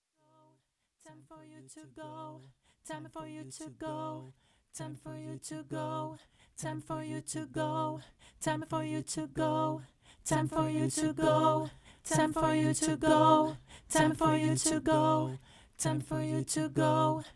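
Wordless layered a cappella vocals: stacked voices singing short rhythmic phrases over a steady low bass note, with sharp percussive hits on the beat. It starts about a second in and gets louder about ten seconds in.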